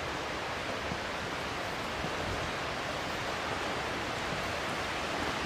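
Waterfall and creek water rushing, a steady even roar with no breaks.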